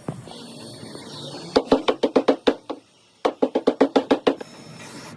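Two quick runs of hammer blows on metal, about eight blows a second, each run lasting about a second with a short pause between.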